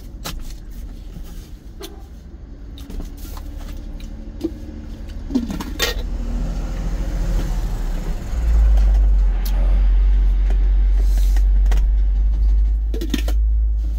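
Truck engine running in the cab, a steady low rumble that steps up louder a little past halfway through and stays there, with scattered clicks and knocks of movement in the cab.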